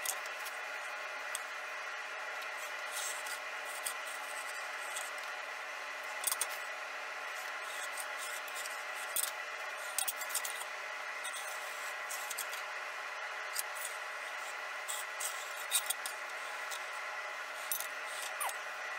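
Steel blade being ground against a running grinder: a steady motor hum with irregular scratchy rasps as the 5160 spring steel is worked, roughing in the sword's fullers.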